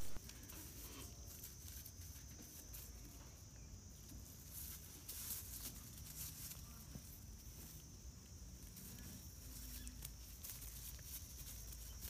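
Faint ambience: a steady high-pitched drone under soft, scattered rustles and taps as baby vervet monkeys play in a pile of cut grass, a little busier about five seconds in.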